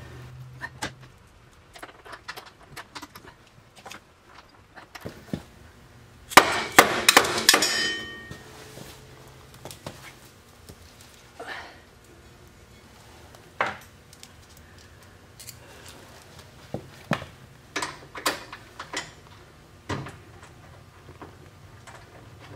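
Metal clinks and knocks from bolts and tools as a winch bumper is lined up and bolted to a side-by-side's front frame, with a loud run of ringing metal clanks about six to eight seconds in.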